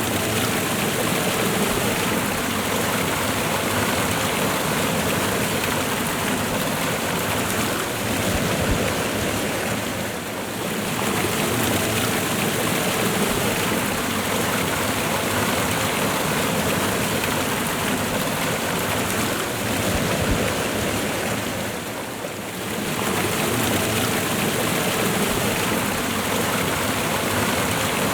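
Waterfall and river water rushing steadily, a dense even roar with slight dips twice.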